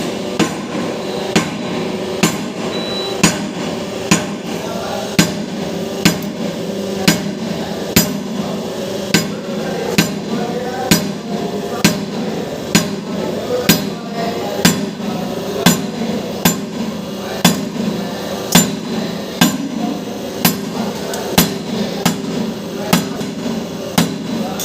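Hammer blows struck at a steady pace of about one a second, driving a bearing into place during bearing pressing, with a steady hum underneath.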